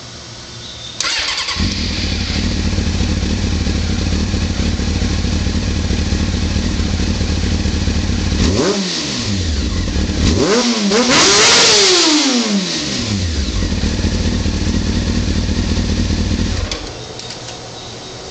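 Honda CBR600 F4i inline-four engine breathing through an Erion slip-on exhaust and mid-pipe, started about a second in and idling steadily. It is blipped once, then revved higher and let fall back to idle, and shut off near the end.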